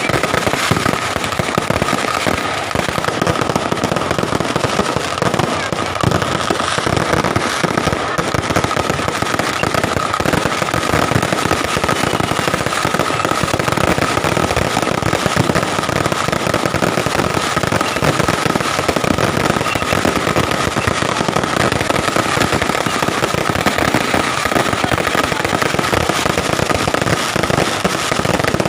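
Fireworks crackling densely and without a break, with rapid sharp pops tumbling over one another, and a steady high tone running underneath.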